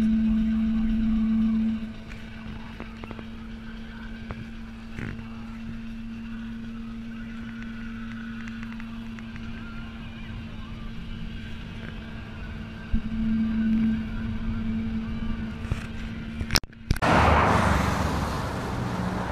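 Steady drone of a van's engine and road noise heard inside the cab at motorway speed. Near the end it cuts to a louder, even rush of wind and traffic at the roadside.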